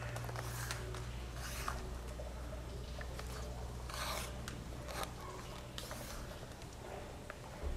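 Leather lace being pulled through punched holes in a piece of leather while lacing a cross stitch: about four brief scratchy pulls, over a steady low hum.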